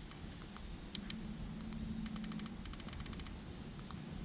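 Small buttons on an e-bike's handlebar control pad clicking as they are pressed over and over, with a quick run of rapid clicks around the middle, while the display's settings menu is stepped through to change the power mode.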